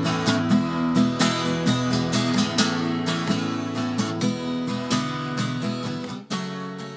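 Acoustic guitar strumming chords in a steady rhythm, an instrumental passage of a song. It gradually gets quieter, with a brief break just past six seconds before the strumming goes on more softly.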